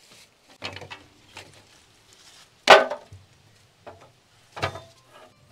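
Knocks and clatter as a metal portable charcoal grill with pieces of kindling wood in its tray is handled and set down: a few separate sharp impacts, the loudest near the middle.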